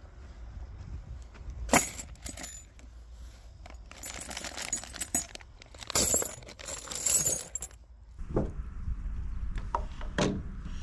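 Steel wedge anchor bolts and square washers clinking and jangling in a plastic bag and cardboard box as they are handled. There are two stretches of rattling, a sharp clink about two seconds in, and two duller knocks near the end.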